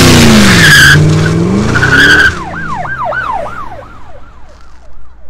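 1999 Ford Mustang GT's 4.6-litre V8 revving hard in a burnout, the revs dipping and climbing again while the rear tyres squeal. The sound cuts off abruptly about two seconds in, followed by a quieter run of repeated warbling chirps that fade away.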